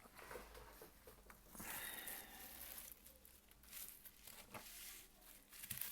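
Faint handling noises: scattered light clicks and soft rustles as small phone parts are picked up and set down.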